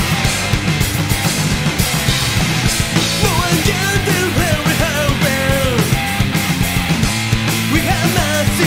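Loud rock music with a driving beat and guitars. From about three seconds in, a lead melody bends and slides in pitch over it.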